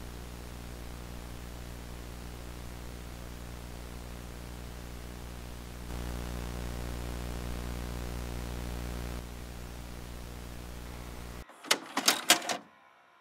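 VHS tape playback noise: a steady hiss with a buzzing mains-type hum, a little louder for a few seconds in the middle, that cuts out suddenly near the end. Right after it comes a quick clatter of loud mechanical clicks and clunks.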